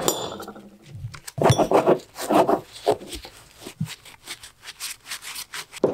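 A rag rubbing greasy black-iron floor flanges and pipe nipples, with repeated clinks and knocks of the metal fittings against each other and the wooden table. A sharp ringing clink opens it.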